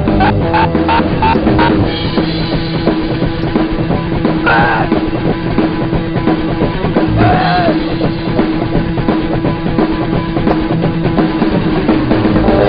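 Background music: a rock track with a drum kit keeping the beat.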